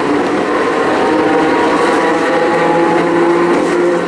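Iyotetsu Type 50 tram's nose-suspended (tsurikake) traction motors and gearing whining as the car runs, a steady sound of several tones over running noise.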